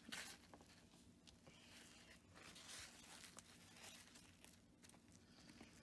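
Near silence, with faint rustling of a damp paper towel being pressed and rubbed over a water-transfer temporary tattoo on a child's hand; the most distinct rustle comes just after the start.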